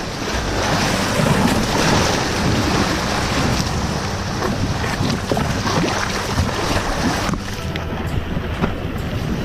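Ocean surf breaking and washing over a limestone rock shoreline, with wind buffeting the microphone.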